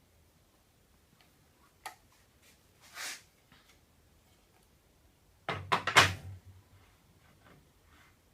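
Small metal hardware and aluminium fence parts being handled: a sharp click about two seconds in, a short rattle about a second later, then a quick cluster of knocks and clinks around six seconds, the loudest of them.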